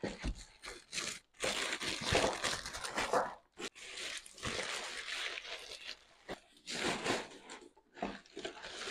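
Plastic packaging bag crinkling and rustling in irregular bursts as a blender's motor base is pulled out and unwrapped, with some crunching of the moulded cardboard insert it sits in.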